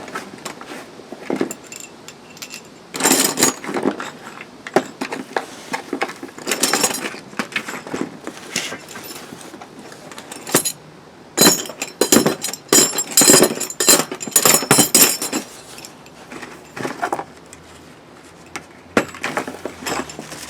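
Loose steel bolts, nuts and washers from a truck-bed crossmember kit clinking and rattling against each other as they are handled, in several spells of quick clicks, the longest and loudest in the middle.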